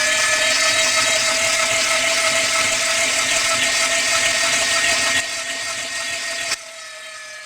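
Electric drill running steadily with a high whine over a rough grinding noise; about five seconds in it gets quieter, then drops lower again shortly after.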